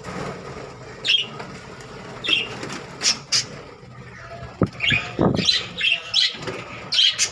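Budgerigars in a breeding colony chirping and squawking: many short, sharp, high calls in quick succession, over a low steady hum, with a brief knock about four and a half seconds in.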